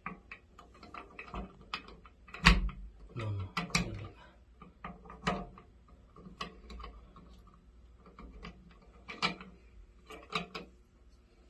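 Irregular plastic clicks and knocks as a black plastic handle adapter is handled and pushed onto the stem of a Moen shower valve cartridge, with one sharper knock about two and a half seconds in.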